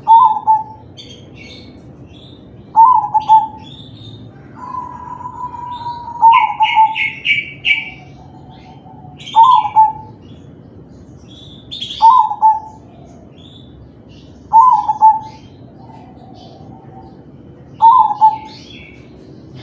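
Zebra dove (perkutut), a crossbred singing bird, cooing its song phrases over and over, one phrase about every three seconds. Fainter high chirps come in between.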